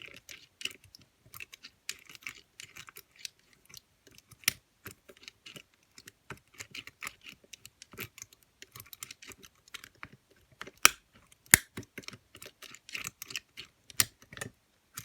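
Lever lock being picked by overlifting: a lifter pick rotating and scraping against the levers under heavy tension, making a busy run of small irregular clicks and scrapes. A few louder, sharp clicks come about two-thirds of the way through and again near the end.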